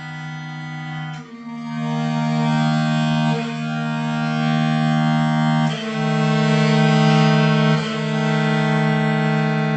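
Bass viola da gamba bowed in long held notes, two pitches sounding together, moving to a new pair about every two seconds: a series of intervals, some tense and some relaxed.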